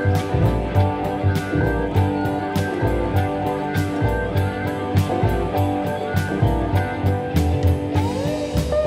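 Background music: an electric guitar over a steady drum beat and bass, with a sliding guitar note near the end.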